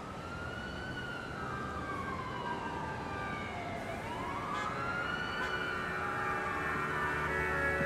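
Emergency vehicle siren wailing in slow rises and falls, about two full sweeps, over a low steady city traffic rumble. Music begins to come in near the end.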